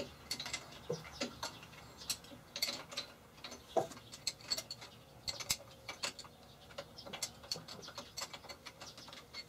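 Irregular sharp metallic clicks and taps of a steel wrench working the bolts on a mill's headstock casting as they are loosened.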